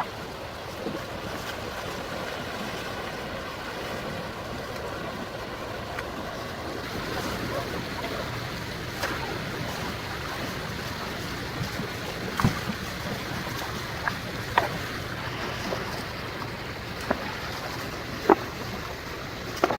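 Running stream water, a steady rush, with a dozen or so short splashes and watery plunks scattered through it, the loudest in the second half.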